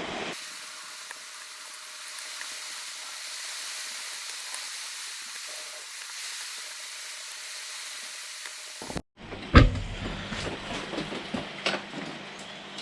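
A steady hiss runs for about eight seconds and then cuts off suddenly. It is followed by a sharp knock and scattered clicks and taps of small plastic and metal parts being handled.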